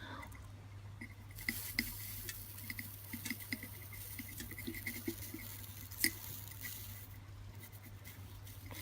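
Faint sizzle and crackle of soldering on a copper heatsink, with many small light ticks, over a steady low hum. The hiss fades out near the end.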